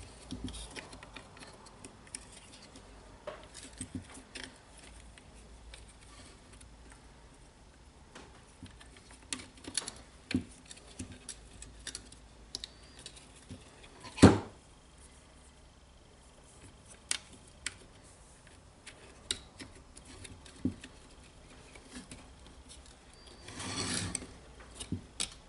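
Small plastic and metal parts of a disassembled DeWalt DCD796 cordless drill being handled and fitted by hand: scattered light clicks and taps, one sharp knock about halfway through, and a brief rustling scrape near the end.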